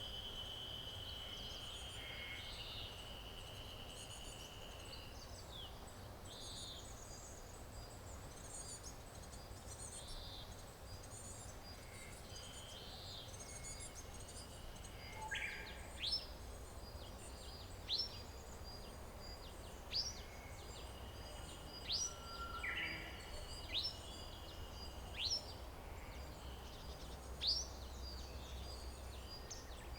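Wild birds calling over a low background rumble. A steady high note for the first few seconds, and from about halfway one bird repeats a short rising whistle roughly every two seconds.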